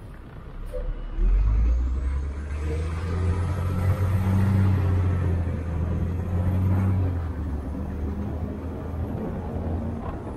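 City bus engine heard from inside the cabin while the bus drives, a low drone that swells about a second in, with a faint high whine above it, easing off somewhat in the second half.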